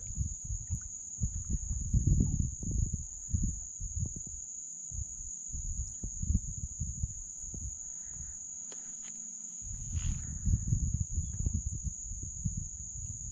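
A steady, high-pitched drone of insects in the marsh grass. Over it comes irregular low rumbling from wind buffeting the microphone, loudest about two seconds in and again near ten seconds.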